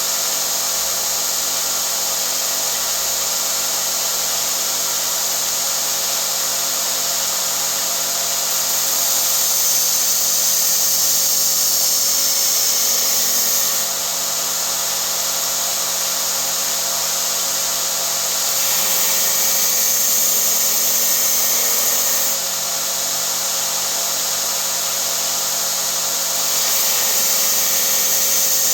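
50x2000 mm belt grinder running steadily. Three times a workpiece is pressed against the belt for a few seconds, adding a louder grinding hiss: about 9 s in, about 19 s in, and near the end.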